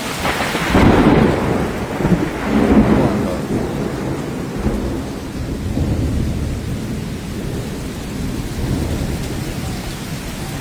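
A thunderclap following lightning, breaking about a second in and rumbling loudest for the next couple of seconds, then rolling on more weakly. Heavy rain keeps falling throughout.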